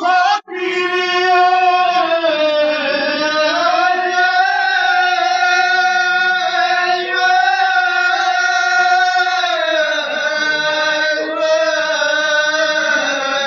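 A man chanting a Pashto noha, a Shia mourning lament, unaccompanied, in long drawn-out notes that slowly rise and fall. The sound cuts out for an instant about half a second in.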